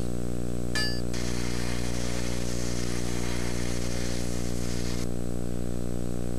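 Stick-welding (shielded metal arc) arc crackling and hissing for about four seconds while tack welds are struck on mild steel plates. It starts after a short clink about a second in and cuts off abruptly, over a steady low electrical hum.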